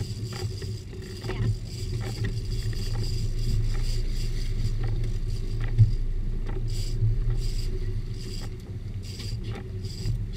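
A sport-fishing boat's engine running steadily, with scattered light clicks and one sharp knock about six seconds in.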